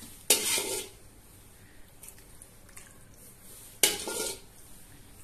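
A metal ladle knocking and scraping against a metal pan while sauce is scooped and poured over pasta: two sharp clatters, one just after the start and one near four seconds in, each with a short scrape after it.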